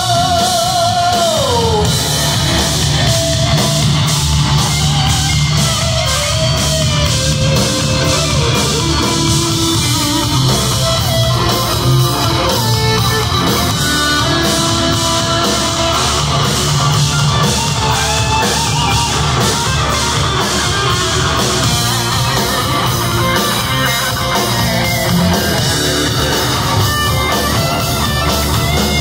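Live heavy metal band playing loud: distorted electric guitar over drums, with rapid, even cymbal hits. A held, wavering note bends down about a second in.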